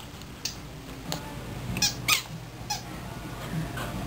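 Rubber squeaky toy ball squeaking in short, high squeaks, several times about a second apart, as a dog goes after it, over a low steady hum.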